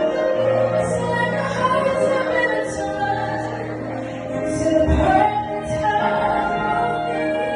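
A string band plays slow music of long, held notes over low, sustained bass notes, with a brief low thump about five seconds in.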